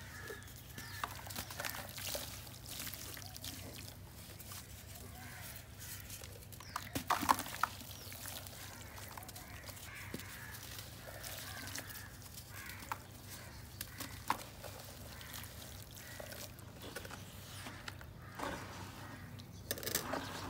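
Hands squeezing and crumbling wet soil in muddy water: soft squelches, drips and small splashes, with a louder cluster of splashes about seven seconds in.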